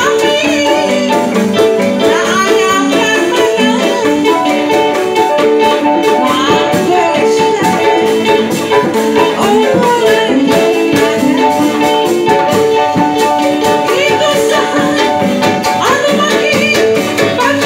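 Live band music of electronic keyboard, kendang hand drums and a large drum, with a woman singing into a microphone.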